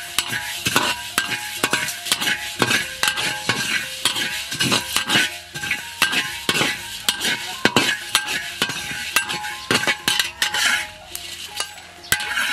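Metal spatula scraping and clinking across a dry iron wok while stirring red and green Sichuan peppercorns as they toast, several strokes a second.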